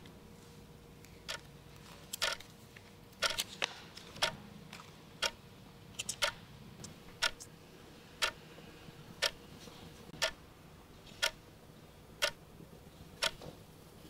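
Clock ticking steadily about once a second, with a few extra irregular clicks in the first several seconds. A faint steady hum runs underneath.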